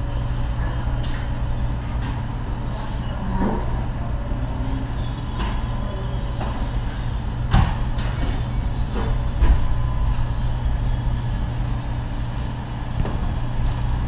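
Steady vehicle engine rumble heard from inside the cabin, with two short knocks around the middle.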